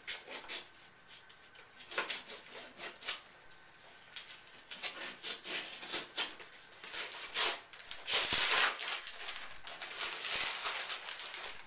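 Packing tape being peeled and torn off a cardboard shipping box, then cardboard flaps and brown packing paper rustling as the inner box is pulled out: a run of scratchy rips and rustles, the longest and loudest about eight seconds in.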